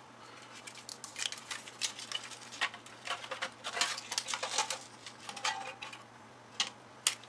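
Irregular clicks, taps and light clatter of plastic and metal parts being handled while an LCD TV's cable connectors are unplugged and its internal boards are worked loose.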